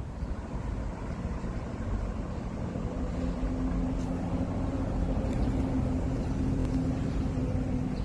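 A low engine drone, a steady hum of a few low tones, comes in about three seconds in and grows a little louder over a low outdoor rumble.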